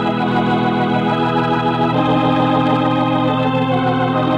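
Organ playing held chords as a bridge between acts of a radio drama, moving to a new chord about halfway through.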